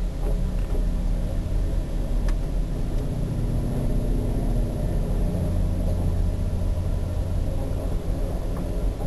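Amtrak passenger train pulling out of the station, heard from inside the car: a steady low rumble of the moving train, with a couple of faint clicks.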